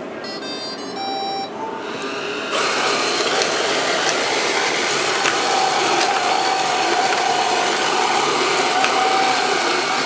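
iRobot Roomba 405 robot vacuum powering on: a quick series of electronic beeps as its start-up tune, then its vacuum motor and brushes start about two and a half seconds in and run steadily with a faint whine.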